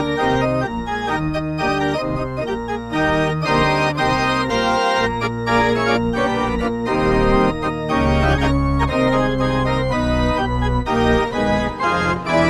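Electric organ music, a quick tune of changing notes and chords over a low bass line, played as a hockey goal celebration.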